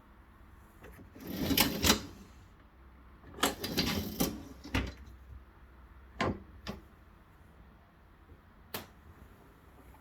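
Two short bursts of clicking and rattling, then a few single sharp clicks spaced a second or two apart, from plastic parts being handled.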